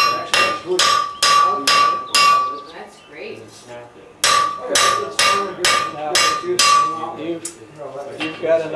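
Hand hammer blows on hot iron on an anvil, about two and a half strikes a second, each followed by the anvil's ring. The hammering stops for about two seconds partway through, starts again, then ends in a few lighter taps.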